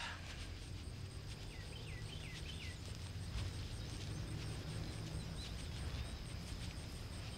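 Outdoor summer field ambience: insects chirring steadily with a rapid even pulse, over a low background rumble. A small bird calls in short chirp phrases, once about a second and a half in and again more faintly past the middle.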